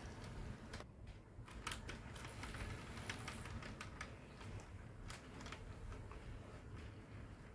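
HO scale model freight train rolling past, its wheels clicking irregularly over the rail joints above a low, faint rumble.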